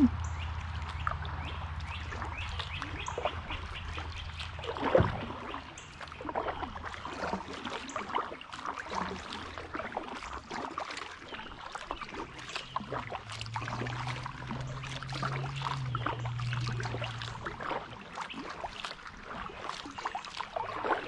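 Kayak paddle strokes in the river: the blades dipping and dripping, with small splashes and trickling water throughout. A single loud knock about five seconds in.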